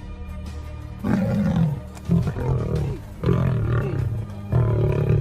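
Animals roaring during a lion attack on a buffalo, four loud calls each under a second long and about a second apart, some falling in pitch, over background music.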